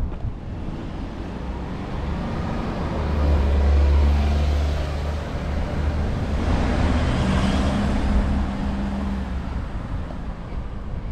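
Road traffic passing on a residential street: a low engine hum swells to its loudest about four seconds in, then a car goes by with a rush of tyre noise peaking a little past halfway and fading toward the end.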